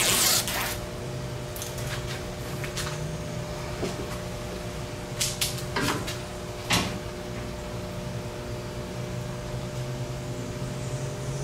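Handling noises as an adhesive-backed LED light strip is fitted by hand: a loud rustle at the start, then a few sharp clicks and taps around the middle, over a steady background hum.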